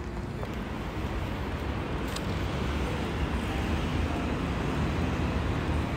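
Steady outdoor city street noise: a traffic hum with a heavy low rumble, growing slightly louder.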